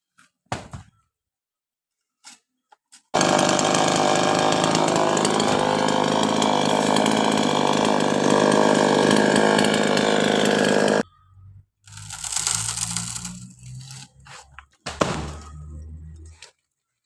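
Chainsaw running at high speed for about eight seconds, its pitch rising a few seconds in, then cutting off suddenly. Shorter, uneven bursts of machine noise follow near the end.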